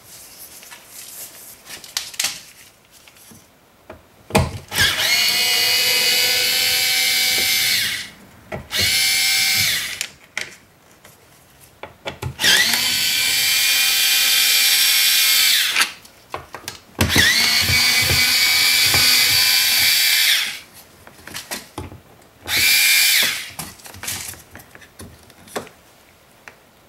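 Small cordless power driver whining in five separate runs, three of about three seconds and two short ones, as it backs out the screws that hold the door panel trim. Between the runs there are scattered clicks of handling.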